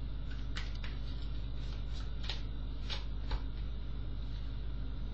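Tarot cards being handled and a card laid down on the spread: about seven short, light card clicks and slides in the first three and a half seconds, over a steady low hum.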